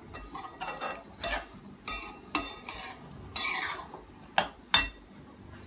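Slotted metal spatula stirring a thick black-eyed pea curry in a metal pan: a run of short scraping strokes against the pan, about two a second, with two sharp knocks a little over halfway through.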